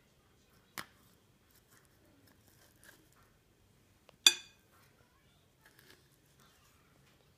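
A butter knife scraping crunchy peanut butter out of a measuring cup into a mixing bowl. Faint scrapes, a light click about a second in, and one sharp, briefly ringing clink of the knife a little after four seconds.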